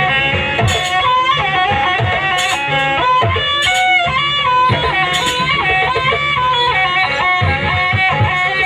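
Live jaranan ensemble music from East Java: a high melody line stepping between notes over steady drumming.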